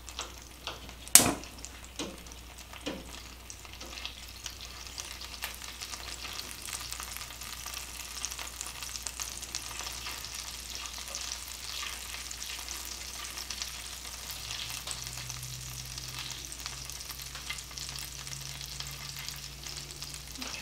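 Butter melting and sizzling in a hot skillet, stirred with a silicone spatula, with a steady crackling hiss. A sharp tap about a second in, then a couple of lighter knocks soon after.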